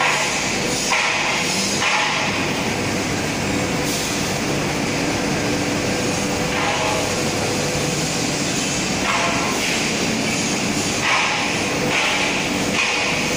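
PVC die-face hot-cutting pelletizing line running: steady machine noise with several steady hum tones under a hiss that swells now and then, from the extruder drive, the centrifugal blower and the vibrating sieve.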